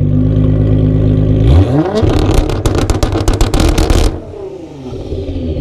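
Tuned Nissan GT-R's twin-turbo V6 idling, then revved sharply about one and a half seconds in. It is held high for about two seconds with a rapid crackle of bangs from the exhaust, cuts off suddenly, and settles back to idle.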